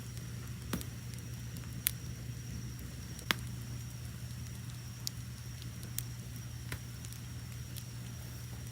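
Wood fire crackling, with a handful of sharp pops, the loudest about two and three seconds in, over a low steady rumble of the flames. Crickets chirp in a steady high trill underneath.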